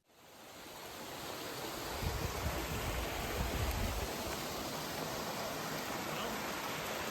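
Steady rush of running water that fades in over the first second or so, with a low rumble for about two seconds in the middle.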